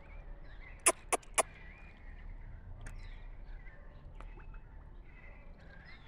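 Morelet's crocodile feeding, its jaws snapping shut: three sharp clacks in quick succession about a second in. Faint bird chirping behind.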